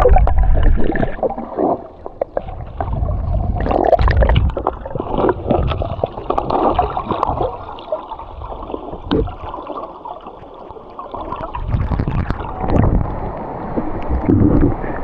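River water splashing and sloshing in irregular bursts as a person wades into it, with low buffeting on the microphone.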